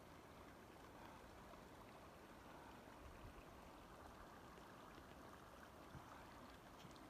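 Faint, steady rush of a mountain stream, an even hiss with no distinct splashes or other events.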